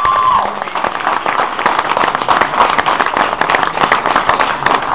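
Audience applauding: many hands clapping at once, a dense steady patter.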